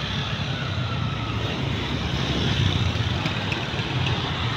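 Steady road traffic noise, with the low rumble of passing vehicle engines.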